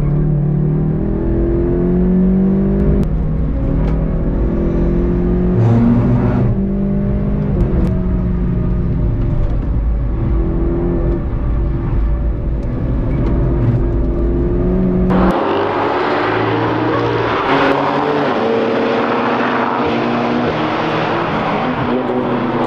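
In-car onboard sound of a VW Golf 7.5 GTI TCR's turbocharged four-cylinder engine driven hard, its revs climbing and dropping through gear changes over wind and tyre noise. About two-thirds in it cuts to a trackside recording of a line of BMW sports cars and the Golf passing through a corner at speed, their exhausts mixing with tyre noise.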